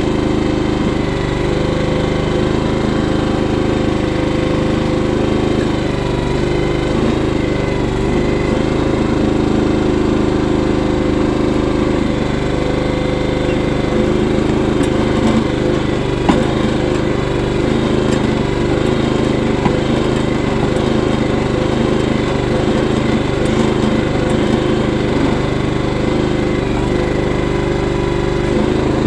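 Harbor Freight trencher's small gasoline engine running steadily while it digs a trench, with one brief sharp knock about sixteen seconds in.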